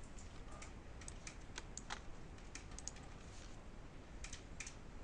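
Computer keyboard keystrokes, faint and irregular, coming in short runs with a pause of about a second near the middle.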